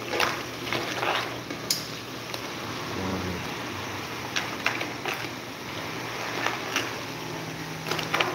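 Crabs and vegetables sizzling and bubbling in a wok as the liquid cooks down, with a utensil scraping and knocking against the pan several times as they are stirred.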